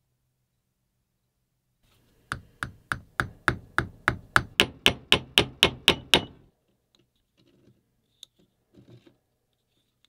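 A quick, even series of about fourteen sharp taps with a short metallic ring, about three and a half a second, growing louder and then stopping abruptly. A few faint handling noises follow.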